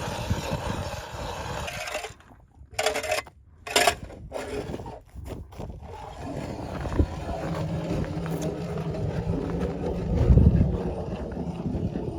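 Wind noise on the microphone, broken by a few abrupt gaps early on. From a little past halfway a small motor hums steadily, swelling briefly near the end.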